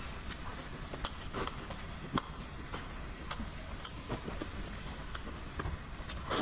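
Close-miked chewing of a braised egg and glass noodles: irregular wet mouth clicks and smacks, a few a second.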